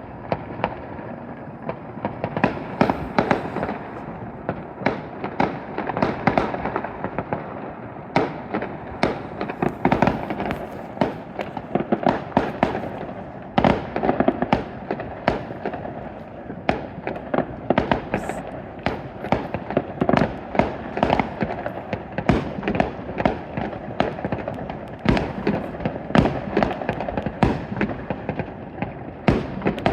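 Fireworks going off from several displays at once: a steady, unbroken run of overlapping bangs and crackles, some sharp and close, others softer and farther off.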